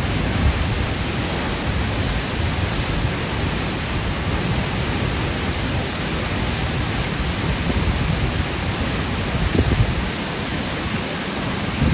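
Steady rushing roar of a waterfall nearly 30 m high, water falling continuously.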